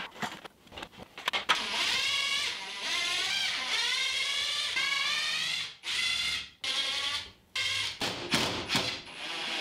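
A power drill driving screws into the wall to mount a wooden clamp rack. The motor whines in runs whose pitch rises and falls, stopping and starting again several times, with a few knocks near the start.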